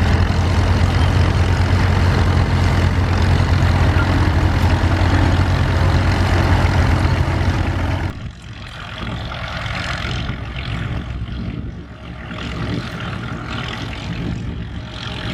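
Vintage tractor engine running steadily close by, a loud, even low hum. About eight seconds in it cuts off abruptly to a quieter, rougher engine sound with more noise in it.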